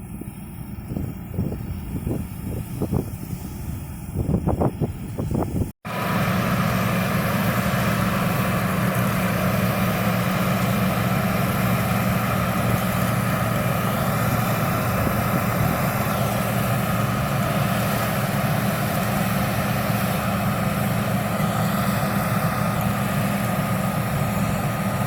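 Engine of heavy rice-harvesting machinery running steadily, with a deep hum. An uneven, lower rumble gives way at a sudden cut about six seconds in to louder, even running.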